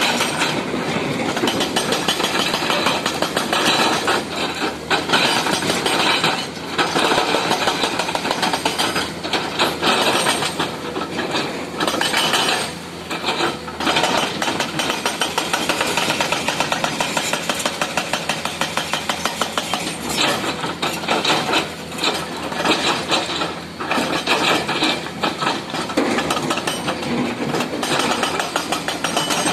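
Hydraulic breaker on a Komatsu excavator hammering in rapid, even blows, with the excavator's engine running underneath. The hammering stops briefly several times before starting again.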